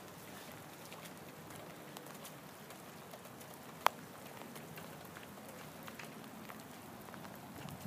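Light rain falling: a soft, steady patter with scattered drop ticks, and one sharp tick about four seconds in.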